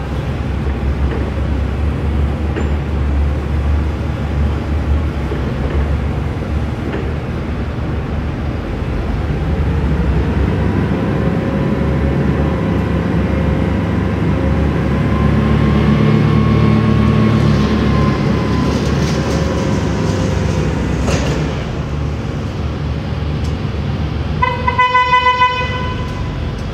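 Forklift's LPG engine running, revving up as the hydraulics raise the mast, with a pump whine that rises and then falls. Near the end, a quick series of short horn toots.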